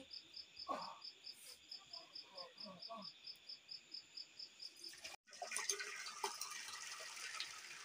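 A cricket chirps steadily, about five pulses a second. About five seconds in, boiled pasta and its hot water pour and splash from a steel pot through a metal colander into the pot beneath.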